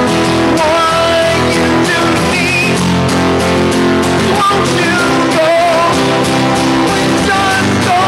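Live rock song played on guitar, with a singing voice carrying a bending melody line over it.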